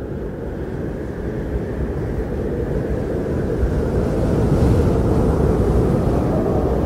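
Low rumbling roar of strong wind, building slowly in loudness.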